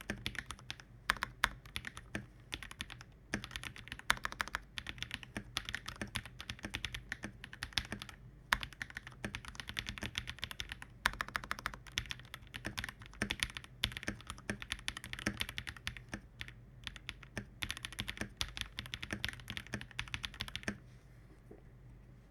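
Fast continuous typing on an NJ80 custom mechanical keyboard with lubed Akko Matcha Green switches, plate foam, case foam and a Poron switch pad: a dense stream of key clacks with some louder strokes, stopping about a second before the end.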